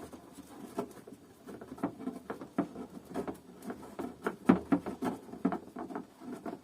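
Irregular light clicks, taps and rattles of a screwdriver and the plastic housing of a Kärcher DS5500 vacuum cleaner being handled while Torx T20 screws are undone, with a louder knock about four and a half seconds in.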